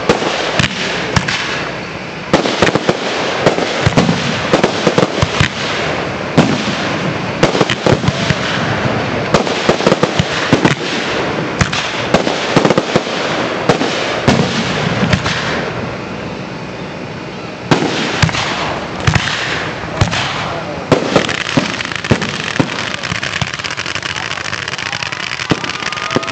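Professional fireworks display: aerial shells going off in a dense run of sharp bangs and crackling over a constant hiss. The bangs thin out briefly about two-thirds of the way through, pick up again, and give way to a steadier hiss near the end.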